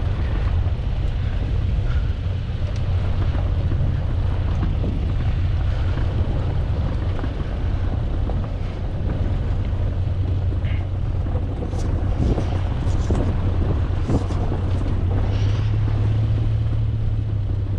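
Car engine running with tyres rolling over a dirt track, heard from on the hood, with wind on the microphone; a steady low drone that grows a little stronger near the end.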